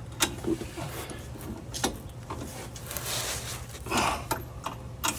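Scattered metal clicks and scrapes of a hand wrench working a stuck shock-absorber nut loose.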